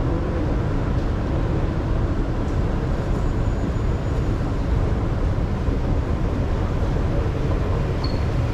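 Singapore MRT train noise: a steady, even low rumble with hiss, unbroken throughout.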